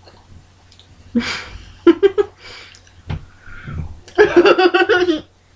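Bursts of laughter, the longest and loudest near the end. A little after halfway comes a faint, breathy whistle attempt through a mouthful of crackers.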